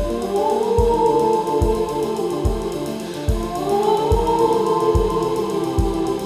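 Background music with a steady drum beat, roughly one hit every 0.8 s, under held melodic tones that swell upward twice.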